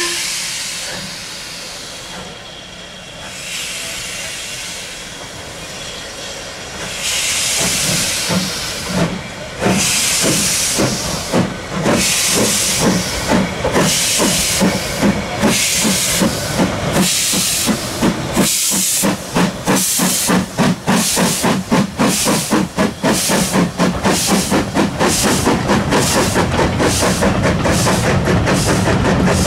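Steam locomotive starting away. Steam hisses at first; about seven seconds in, the exhaust beats begin, slow at first, and quicken steadily until they come several a second near the end.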